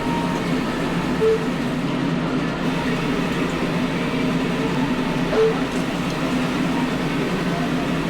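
Rational SCC WE combi oven running its function test after a care pump replacement: a steady mechanical hum of pump and motor, with a brief higher tone about a second in and another about five seconds in.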